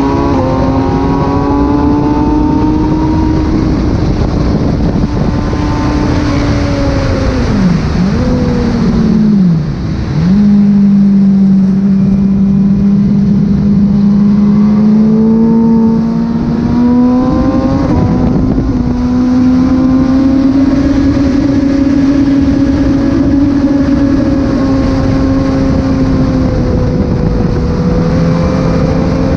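Freshly rebuilt Kawasaki ZX-6R 636 inline-four engine being run in on track at steady part throttle, held at a constant high pitch under rushing wind. About a third of the way in, the revs drop sharply twice and pick up again, then the note settles and climbs back.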